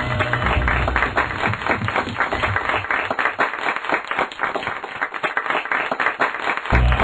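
Applause and clapping mixed with music, from the same cartoon soundtrack playing in several overlapping copies at once. The music's bass drops away in the middle and comes back near the end.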